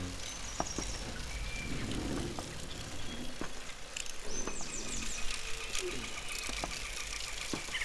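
Forest ambience of bird chirps over a steady low hiss, with a few scattered short clicks.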